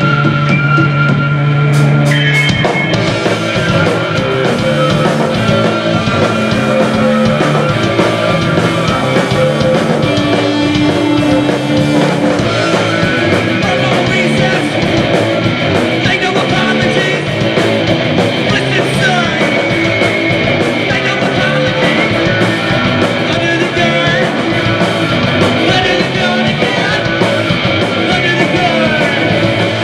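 Post-punk band playing live: loud, distorted electric guitars, bass and drums. A held chord rings for the first couple of seconds, then the full band comes in with the drums and plays on steadily.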